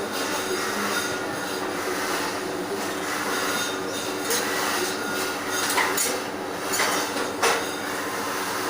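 MIG welder arc crackling and hissing steadily, with a low steady hum underneath and a few sharp knocks in the second half.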